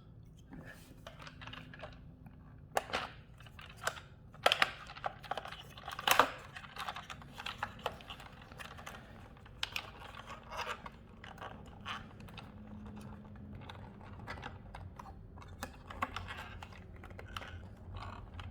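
Irregular clicks, taps and light plastic knocks of hands fitting a homemade battery pack and its wires into a Tyco Rebound RC truck, with a few sharper clicks about 3, 4.5 and 6 seconds in.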